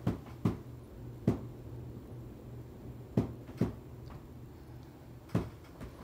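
Harbor Breeze Builder's Best ceiling fan running on high speed with a steady low hum, broken by about six sharp knocks at uneven intervals.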